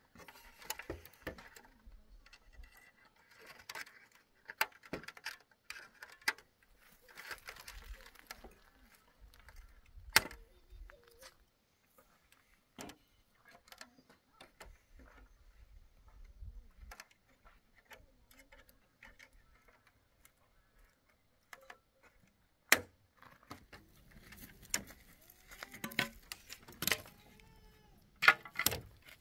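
Scattered sharp knocks and clinks of things being handled, irregular, with a few much louder knocks.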